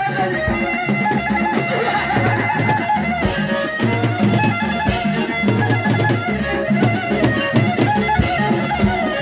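Live Moroccan chaabi music: an amplified violin, held upright on the knee, plays a wavering melody over hand-beaten frame drums with a steady beat.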